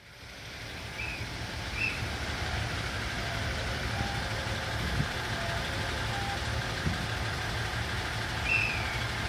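Diesel railcar engine idling steadily, a low rumble, with a few short high chirps over it near the start and near the end.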